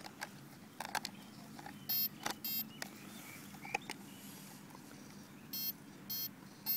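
Short electronic beeps from the radio-control gear of an electric Align RC helicopter, two about half a second apart around two seconds in and three more near the end, each about a third of a second apart. Light plastic clicks and handling noise as the canopy is pressed onto the frame.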